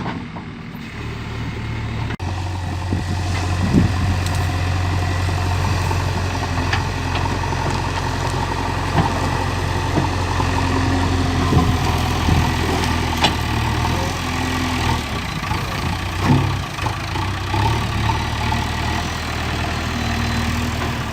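JCB 3DX backhoe loader's diesel engine running steadily, picking up about a second in, with a few short sharp knocks.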